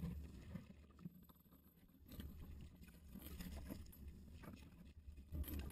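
Faint water sloshing and splashing around a fishing kayak, over a steady low rumble.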